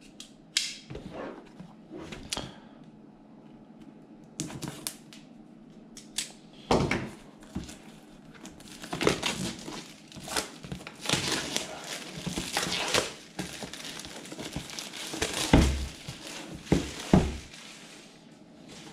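Plastic shrink-wrap being torn and peeled off a cardboard box, crinkling loudest in the middle, with a few scattered taps early on and a few dull thumps near the end as the box is handled.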